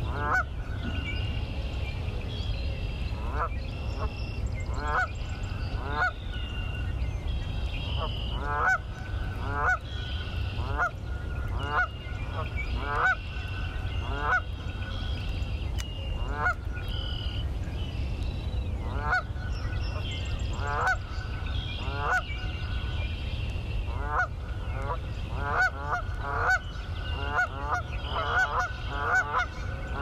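Geese honking over and over, a call roughly every second, coming faster and overlapping near the end. Fainter, higher bird calls sound behind them over a steady low rumble.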